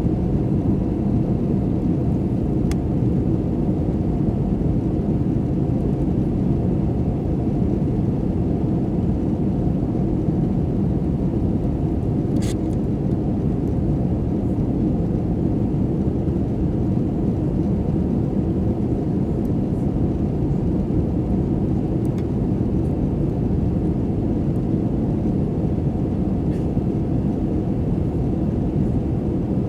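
Steady low roar of an Airbus A320's jet engines and airflow, heard inside the passenger cabin during the climb after takeoff. A couple of faint clicks, the clearest about twelve seconds in.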